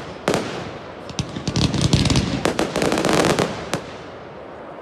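Aerial fireworks: a sharp bang just after the start, then a rapid run of many cracks and pops as shells burst, thinning out near the end.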